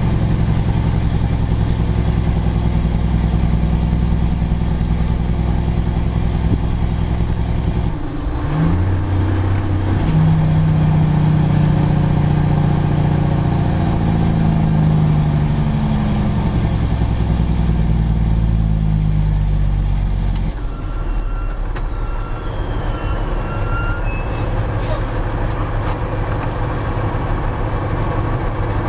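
Loaded Kenworth logging truck's diesel engine running under way. There is a brief break in the engine note about eight seconds in, then the note climbs with a high whistle that rises and falls. About twenty seconds in, the engine drops to a lower, quieter note as the whistle falls away.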